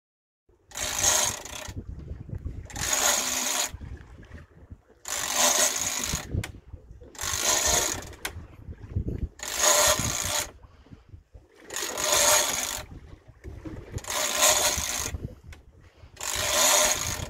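Big-game fishing reel buzzing in short bursts, one about every two seconds, while fighting a hooked shark on a heavily bent rod.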